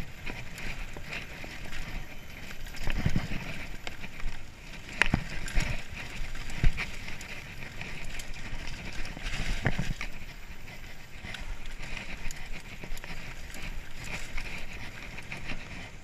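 Mountain bike rattling over a rough dirt trail, with tyre and frame noise throughout and a handful of sharp knocks as it hits roots and rocks, the loudest about six and a half seconds in.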